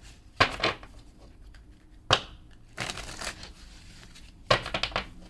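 Tarot cards being handled: a few short, sharp snaps and taps, with fainter rustling between them and a quick run of snaps near the end.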